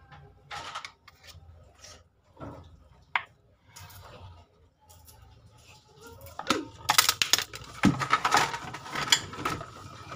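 Hands handling bananas and their peels on a kitchen counter: scattered clicks and rustling, becoming busier and louder about six seconds in with a quick run of clicks and scrapes.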